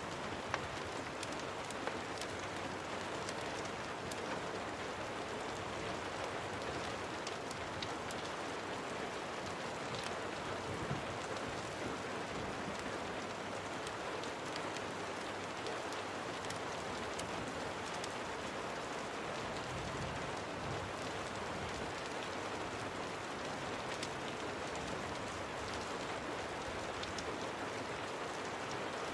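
Steady rain falling without a break, with scattered sharp ticks and crackles.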